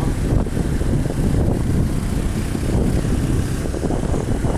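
Motorcycle moving steadily along a road, heard from the rider's seat: a steady low rush of wind over the microphone mixed with engine and road noise.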